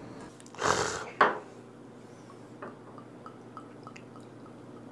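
A short rustling brush and a knock from tableware being set down, then a run of small liquid drips, about three a second, as liquid is tipped from a small bottle into a small dish.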